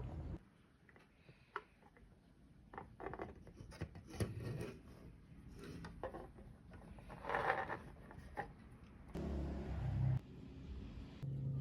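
Small rubbing and scraping sounds with scattered light clicks: hands working on a GTX 750 Ti graphics card as it is cleaned and its thermal paste replaced. A steady low hum comes in near the end.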